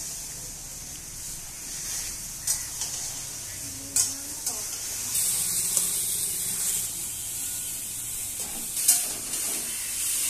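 A thick greens-and-fish mixture sizzling in a metal wok while a long metal spatula stirs and scrapes it. A few sharp clinks of the spatula against the pan come about 2.5 and 4 seconds in and again near the end.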